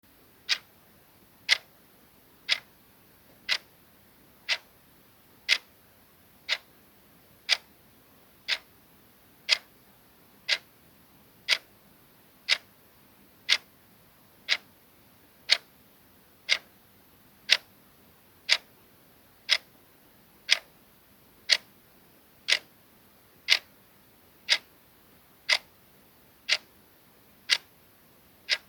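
Clock-ticking sound effect: crisp, even ticks, one per second.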